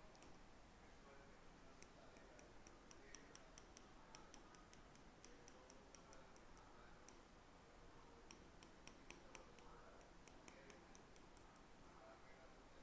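Near silence with faint, rapid light clicking, about four or five clicks a second, in two runs separated by a short gap.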